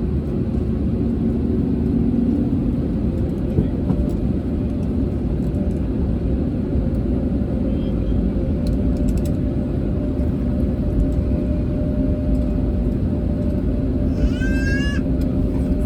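Steady low rumble with a steady hum from an Airbus A320neo. Near the end a brief series of high rising chirps sounds for about a second.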